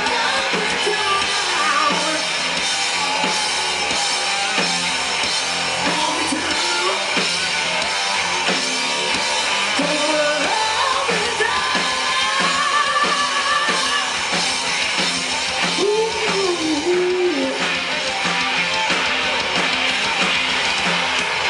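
Live rock band playing at a steady loud level: electric guitars over a drum kit, with lead lines bending up and down in pitch.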